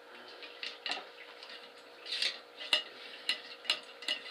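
Ramrod with a cleaning patch being worked in the bore of a .50 calibre muzzleloader barrel: irregular scraping and clicking of the rod against the barrel, with several sharper clicks in the second half.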